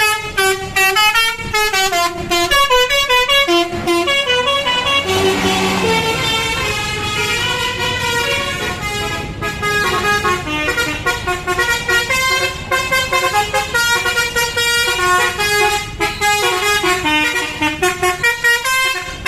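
Bus telolet horn (Basuri V3 type) playing a rapid melodic tune of short, multi-tone notes that jump up and down in pitch, with a brief rush of noise about five seconds in.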